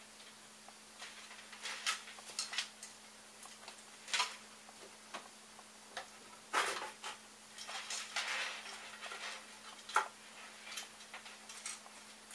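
Irregular light clicks, taps and rustles of hands working a bundle of stepper motor wires through a 3D printer's square frame tube, with a louder knock about six and a half seconds in.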